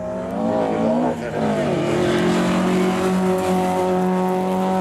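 Historic rallycross car engine at high revs. Its pitch rises and falls through the first second and a half, with a brief lift just after one second, then it holds a steady note as the car powers through the corner.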